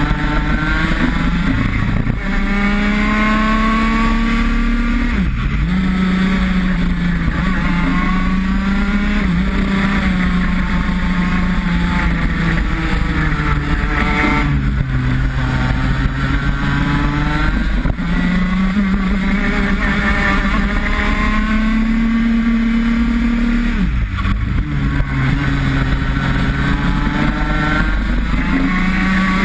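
IAME X30 kart's 125cc two-stroke engine at racing speed, heard onboard: the engine note climbs steadily as the kart accelerates down the straights, then drops sharply several times as the driver lifts and brakes for corners.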